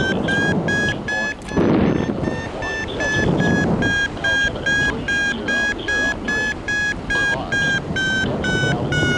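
Paraglider variometer beeping in quick short tones, about three a second, the climb signal that the glider is rising in lift. Near the end the beeps slow and drop in pitch as the climb weakens. Gusts of wind rush on the microphone between the beeps.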